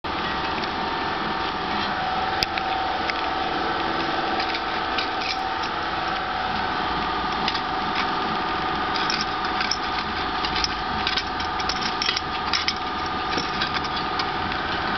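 Irregular sharp knocks from a 2008 Toyota RAV4's electric power-steering rack over a steady mechanical hum, sparse at first and coming thick and fast in the second half. The knock comes from the rack's right support bushing, worn out after dirt got past a loose boot and the corroded rack shaft wore it down.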